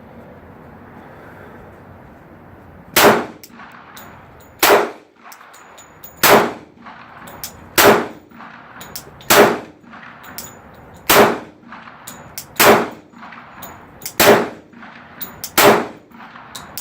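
About ten 10mm pistol shots from a Glock 29 firing PMC Bronze 170-grain jacketed hollow points, evenly paced about a second and a half apart after a pause of about three seconds. Every round goes off, with no light-primer-strike misfires.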